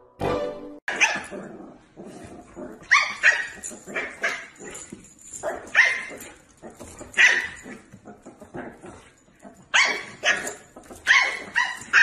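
Dog barking and yipping: short, sharp, high-pitched barks repeated irregularly, a few every second or two.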